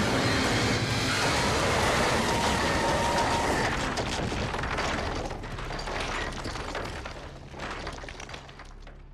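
Cartoon sound effect of a crash and collapse: a loud rumbling blast with crackling, falling debris. It stays loud for about four seconds, then thins out and dies away near the end.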